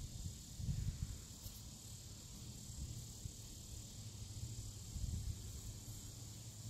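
Outdoor ambience: a steady, high-pitched insect drone under an uneven low rumble. The rumble swells about a second in and again around five seconds.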